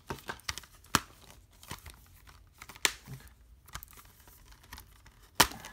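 Hands handling a plastic Blu-ray case and its cardboard slipcover: rustling and scraping with sharp plastic clicks and snaps, the loudest about five and a half seconds in.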